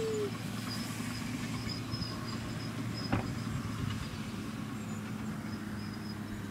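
Electric motor and propeller of a Dynam Sbach 342 RC aerobatic plane droning steadily high overhead. A falling tone tails off at the very start, and there is a single click about three seconds in.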